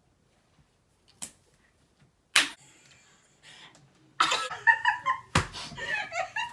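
A couple of sharp clicks in near quiet, then from about four seconds in two women shrieking excitedly and laughing.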